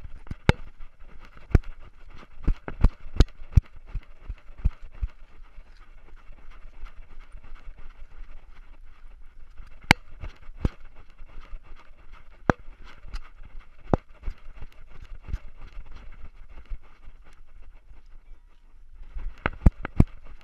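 Collar-mounted GoPro Hero3 Silver and the dog's collar knocking and clicking as the dog moves, in irregular sharp taps over a faint steady hiss. The knocks come thick at first, thin out, and bunch up again near the end.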